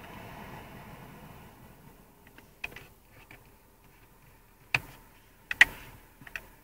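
Irregular sharp clicks and ticks from a BMW E46's air vents, with the loudest pair close together near the end. A soft rush of air from the vents fades away over the first couple of seconds.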